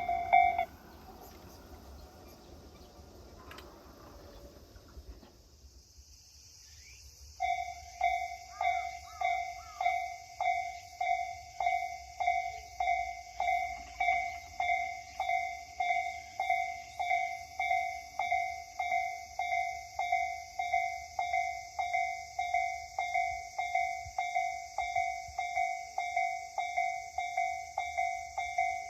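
A Japanese level-crossing warning bell ringing. It stops under a second in, once the crossing has cleared. After a quieter gap with a faint high hiss, it starts again about seven seconds in with a steady, evenly repeating electronic ding that signals another train approaching.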